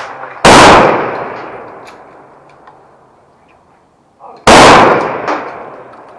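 Two service rifle shots on a firing range, about four seconds apart, each loud and sharp with a long echo trailing off behind it.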